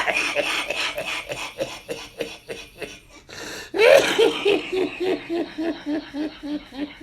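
A person laughing in rapid, repeated pulses. About four seconds in, a louder burst of laughter starts and runs on in evenly spaced ha-ha pulses, fading near the end.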